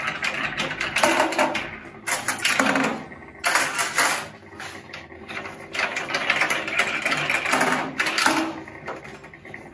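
Clamp knobs on the stainless lid of a Smokaroma pressure smoker being spun loose by hand after cooking. The sound comes in several bursts of clicking and rattling.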